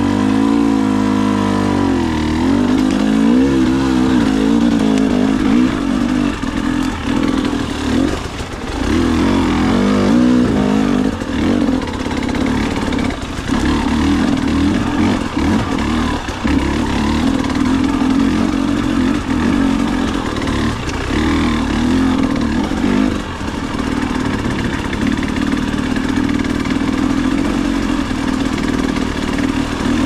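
KTM 300 XC-W two-stroke dirt bike engine running under the rider, its revs rising and falling with the throttle as it picks its way over rocks.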